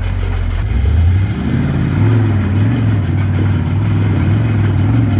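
Rock crawler buggy's engine working under load as the buggy climbs a sandstone ledge. The revs climb about a second in, then rise and fall again and again as the throttle is worked.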